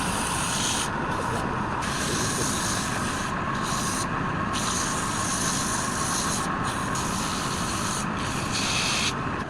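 Wood lathe running with a steady hum while the spinning workpiece is worked by hand, a rasping noise that stops briefly several times as contact is lifted.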